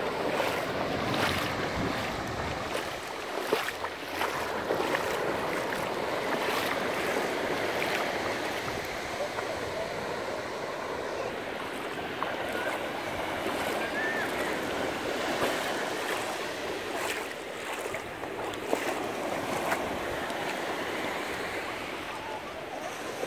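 North Sea surf washing in over the shallows and lapping at the shoreline: a steady rush of water with a few brief small splashes.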